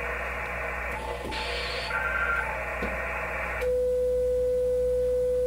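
Band static hissing from a QRP ham radio's speaker while the antenna tuner's capacitor is adjusted. About three and a half seconds in the static cuts off and a steady single-pitched sidetone note begins as the radio keys a carrier to check the tuner's match (SWR).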